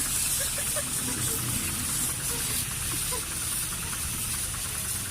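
Car-wash pressure washer spraying water in a steady hiss, with a low steady hum of its pump underneath.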